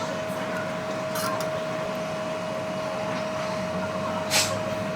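Steady machine hum with a constant high tone, and one short sharp noise about four seconds in.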